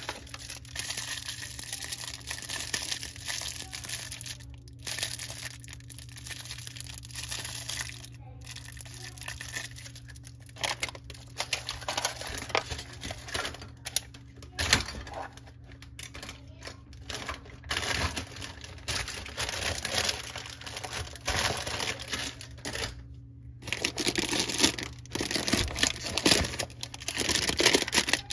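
Thin clear plastic packaging bags crinkling and rustling as they are handled, in irregular bursts with a few short pauses and the loudest crinkling near the end.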